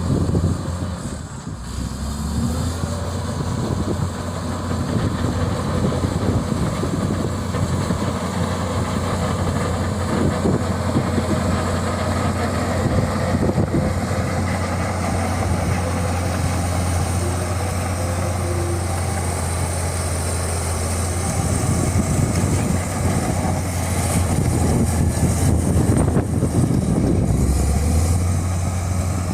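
Heavy construction vehicle's engine running steadily with a low, even hum.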